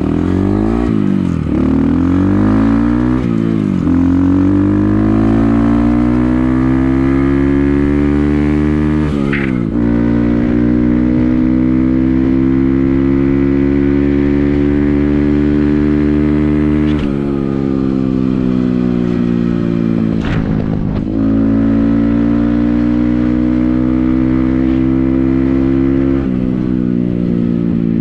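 Motorcycle engine heard on the ride: it revs up through several quick upshifts at the start, then pulls at a steady, slowly rising pitch. Its pitch drops with throttle changes or shifts about ten seconds in, again around seventeen and twenty seconds, and near the end.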